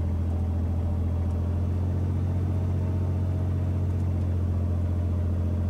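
Cessna T206H's turbocharged six-cylinder Lycoming engine held steady at about 1800 RPM during the pre-takeoff run-up, heard from inside the cockpit as a loud, even drone with a strong low hum.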